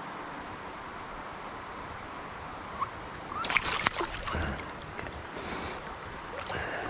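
Shallow stream water running steadily. About three and a half seconds in there is a short burst of splashing and sloshing from a steelhead held in a landing net in the water, with a few more splashes near the end.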